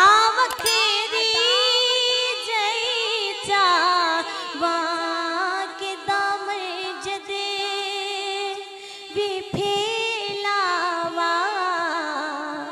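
A woman's voice singing a Punjabi naat in long, drawn-out ornamented phrases, the pitch sliding and wavering without clear words.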